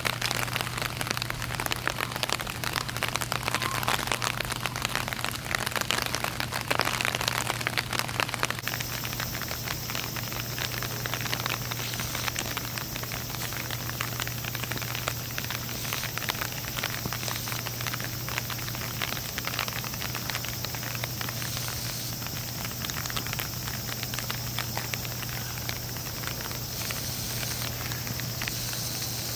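Steady outdoor crackling hiss made of dense fine ticks, slightly louder in the first several seconds, over a low steady hum.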